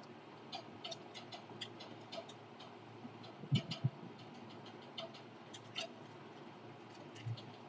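Small, irregularly spaced clicks and taps, with two heavier thumps close together a little before the middle.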